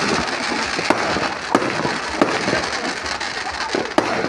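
Fireworks display: several sharp bangs of shells bursting over a continuous dense crackle.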